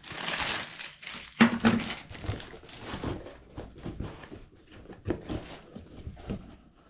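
Cardboard microphone box and its plastic wrapping being handled: crinkling rustle at the start, a louder knock about a second and a half in, then a string of light scrapes and taps as the box is pushed and its flap folded shut.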